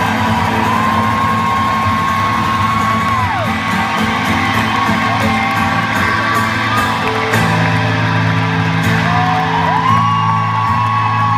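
Live concert music: long held high notes that drop away at their ends over sustained low chords, with whoops from the audience.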